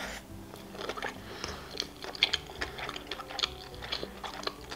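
A person chewing a mouthful of sushi roll: soft, irregular mouth clicks and smacks, several a second.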